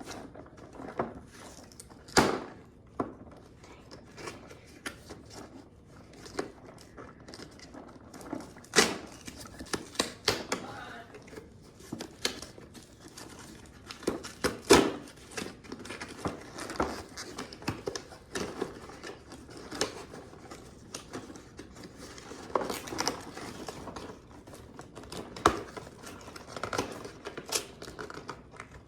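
Toy packaging being opened by hand: plastic and cardboard crinkling and tearing, with irregular sharp clicks and taps as pieces are handled.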